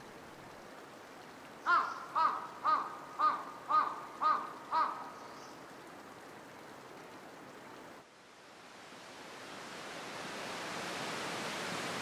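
A crow cawing seven times in quick succession, about two calls a second, over faint steady outdoor noise. After a sudden change about two-thirds of the way in, a steady rushing noise of falling water fades up and keeps growing louder.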